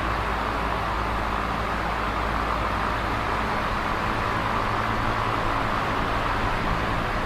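Large box fan running steadily: a constant whooshing rush of moving air with a faint low motor hum underneath.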